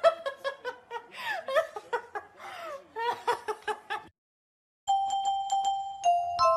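A person giggling and laughing in short, high-pitched bursts. After a brief silence about four seconds in, background music of bell-like struck notes begins.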